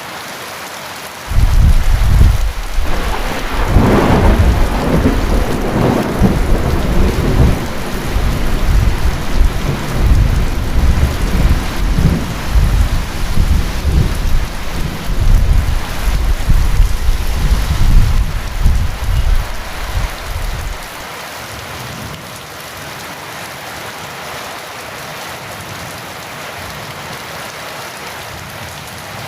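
Heavy rain falling steadily. About a second in, a loud clap of thunder breaks in and rolls on in deep rumbling waves for nearly twenty seconds, then stops, leaving the rain alone.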